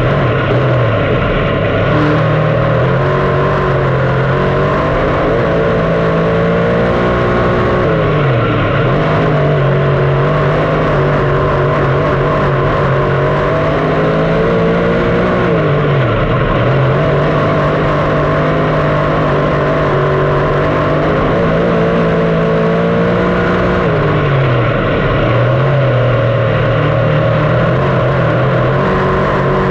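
358 small-block V8 dirt modified engine at racing speed, its pitch dropping as the throttle is lifted for a corner and climbing again back on the gas, four times, about every eight seconds.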